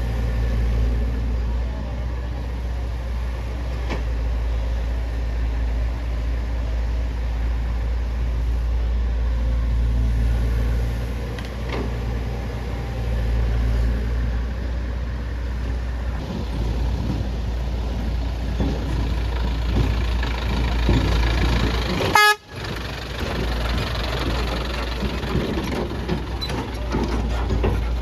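Heavy vehicle diesel engine running steadily with a low rumble. A short horn toot sounds about twenty-two seconds in.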